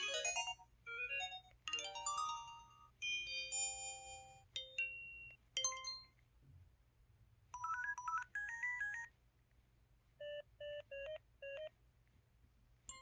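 IM-U440K mobile phone alert tones played one after another: a run of short electronic chime and melody jingles, each a few notes, with short gaps between them. Near the end come about five short, evenly spaced beeps.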